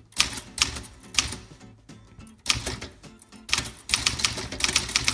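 1950 Remington ANP manual portable typewriter being typed on, its type bars striking the platen: a few separate keystrokes, then a quicker run of strokes near the end.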